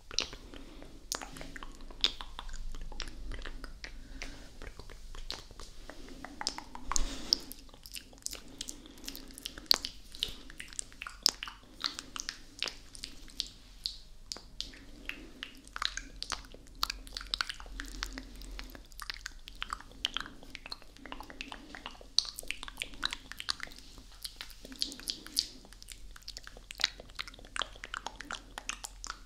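ASMR mouth sounds made right at the microphone: a dense, irregular run of wet lip smacks, kisses and tongue clicks, several a second.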